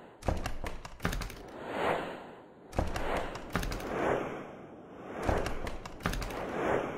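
Animated intro soundtrack of sound effects: clusters of sharp clicks and thuds, each followed by a whoosh that swells up and fades away, repeating about every two and a half seconds.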